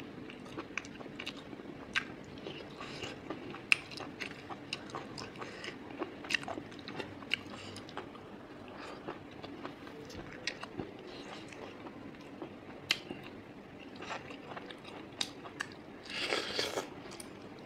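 A person chewing and biting pork intestine and rice, with many short wet mouth clicks and smacks scattered throughout. Near the end comes a louder wet sucking sound as a lemon slice is bitten and sucked.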